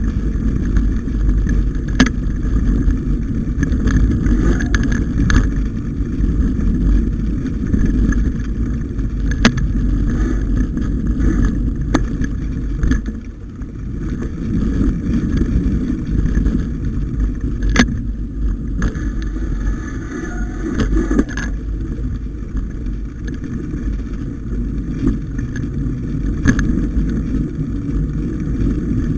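Mountain bike riding a snowy forest trail, heard through the onboard camera as a steady low rumble of wind on the microphone and tyres on the track, with occasional sharp knocks as the bike jolts over bumps.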